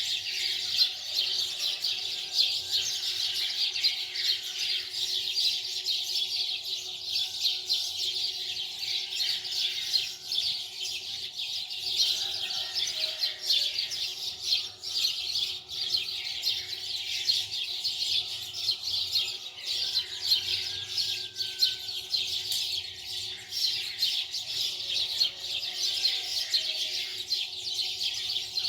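Many small birds chirping at once in a dense, unbroken chatter, with a faint steady hum underneath.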